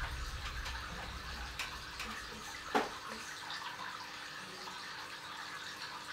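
Steady hiss of background noise with a few faint clicks and one sharper knock a little under three seconds in.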